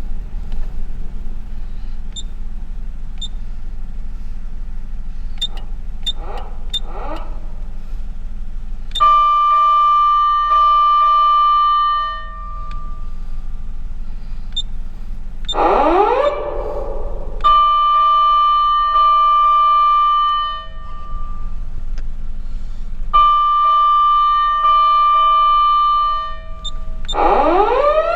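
Patlite SAP-500 siren amplifier sounding fire-engine siren tones: a few faint rising chirps, then three steady held high tones of about three seconds each, broken by two rising wails, the last one climbing and levelling off near the end. A steady low engine rumble runs underneath.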